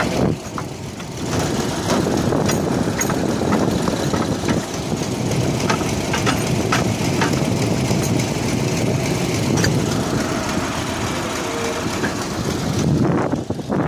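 A diesel engine running steadily, with scattered sharp clicks and clanks over it.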